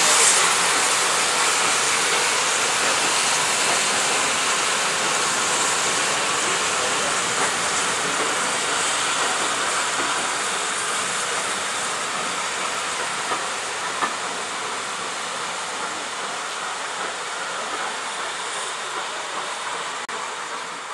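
Steam locomotive departing with a steady hiss of escaping steam, while its passenger coaches roll past on the rails. The sound slowly fades as the train draws away.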